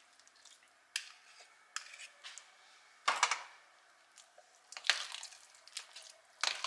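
Metal spoon stirring a thick avocado and quark mash in a glass bowl: irregular sharp clinks and short scrapes of metal on glass, about half a dozen, the loudest a little after three seconds in.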